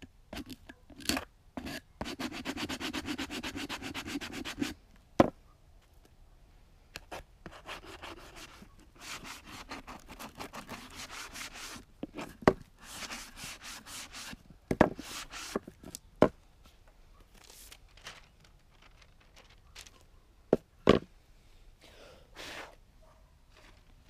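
Power drill driving screws into pallet boards: one steady run about two seconds in, then shorter, quieter runs, with sharp knocks of wood boards between them.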